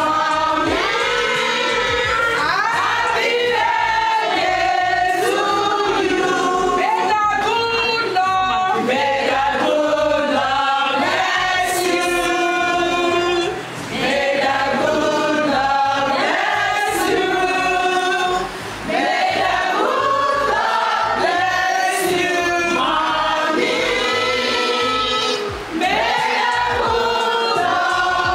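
A group of women singing together in chorus, a celebratory church-style song sung without pause except for brief breaths between phrases.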